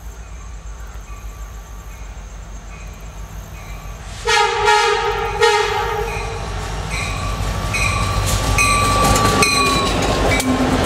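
CSX freight train's locomotive horn sounding two blasts about four seconds in, then the diesel engines' rumble and wheel clatter growing louder as the locomotives pass close by.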